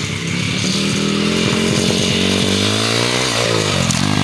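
Small dirt bike engine running and revving hard as the bike accelerates, its pitch climbing through the middle and then dropping away about three seconds in.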